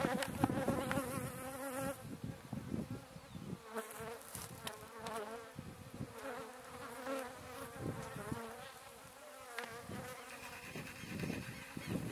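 Honeybees buzzing in flight, the pitch of the buzz wavering as they move about.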